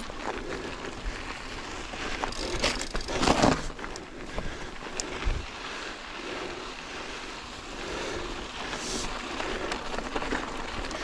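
Yeti SB150 mountain bike rolling along a dirt trail: tyres crunching over the ground, with scattered clicks and rattles from the bike over bumps. It gets louder and rougher for a moment about three seconds in.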